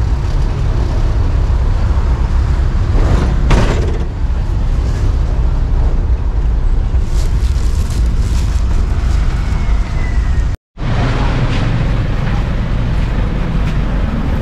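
Engine and road noise in the open back of a moving songthaew pickup-truck taxi: a steady low rumble, with a short rattle about three and a half seconds in. The sound cuts out for an instant about two-thirds of the way through.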